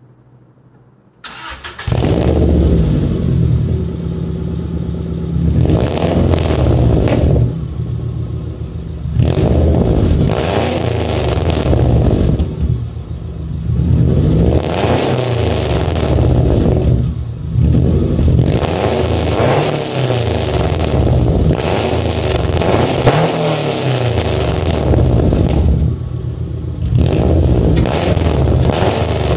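A 2005 Subaru Impreza's turbocharged flat-four boxer engine, with Borla headers, a Magnaflow exhaust and no catalytic converters, starts warm about a second in. It then idles with a rumble and is revved up and let back down again and again.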